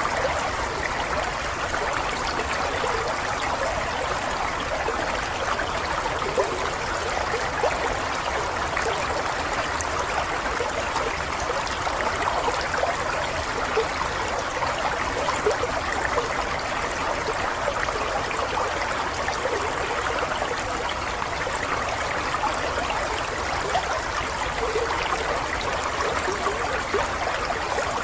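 Running water flowing steadily and evenly, with a fine, busy splashing texture and no pauses.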